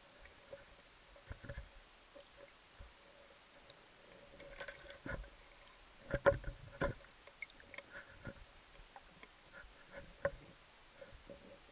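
Underwater recording of scattered knocks and clicks, likely gear knocking against rock as a spearfisher probes a crevice with a torch and speargun. The loudest cluster comes about six to seven seconds in, with another knock near ten seconds, over a faint steady hum.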